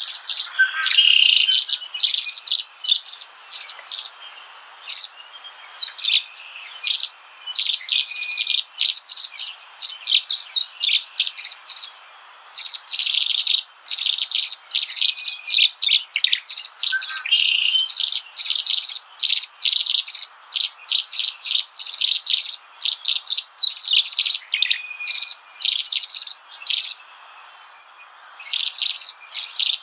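Small birds chirping busily, many short sharp chirps a second with a few brief pauses.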